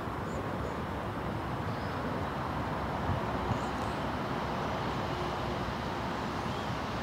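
Steady outdoor background noise: a low rumble with a hiss over it.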